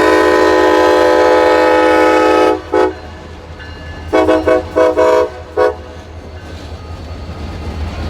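Locomotive horn of a CSX local train sounding a salute: one long blast of about two and a half seconds, a short toot, then a quick string of short toots. A steady low rumble of the train runs underneath.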